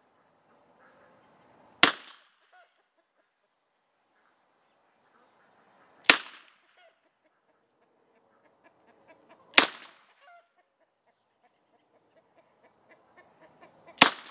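Four shots from an early-1900s Smith & Wesson revolver in .32 S&W Long, spaced three and a half to four and a half seconds apart. Each is a sharp crack with a short ringing tail.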